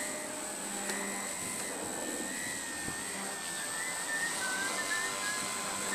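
Radio-controlled model aircraft engine running, a faint high whine that wavers up and down in pitch over a steady background hiss.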